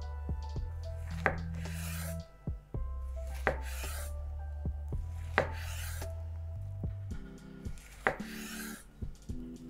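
Chef's knife slicing a fresh fig into rounds on a wooden cutting board: four sharp knocks of the blade on the board, about every two seconds, each followed by a short hiss.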